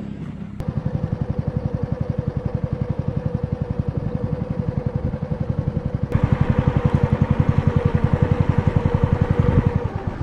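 Small riverboat's engine running with a fast, even throb, picking up about half a second in and revving louder from about six seconds in, then easing off near the end.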